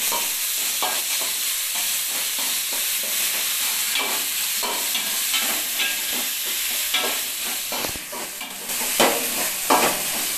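Mutton, shallots and tomatoes sizzling in an aluminium pot while a metal spoon stirs and scrapes against the pot in irregular strokes over a steady hiss of frying.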